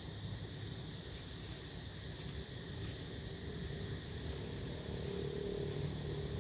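Outdoor ambience: a steady high-pitched insect drone over a low rumble, with a faint hum joining in the second half.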